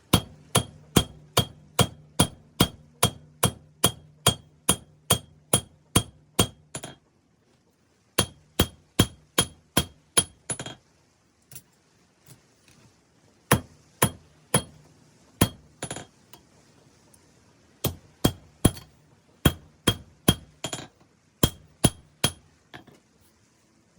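Hammer blows on an anvil, forging 5160 steel into a knife blade. The strikes come in runs of about three a second, each with a bright metallic ring, and there are short pauses between the runs.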